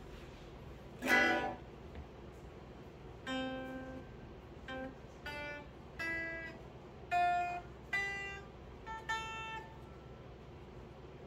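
Gretsch semi-hollow electric guitar played slowly: one strum about a second in, then a series of single picked notes and chords, each ringing out and fading before the next.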